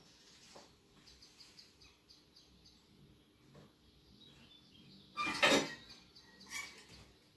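Handling noise from someone working with small parts: a few faint high chirps in the first seconds, then a loud short burst of noise about five seconds in and a smaller one a second later.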